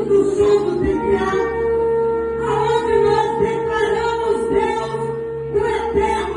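A shofar sounding one long held note, starting about a second in and stopping about a second before the end, over worship music with singing.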